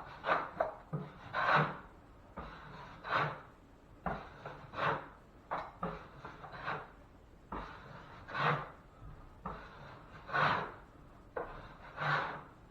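Short scraping strokes of a drywall knife across joint compound on a ceiling patch, roughly one a second and unevenly spaced. It is setting hot mud being slicked out.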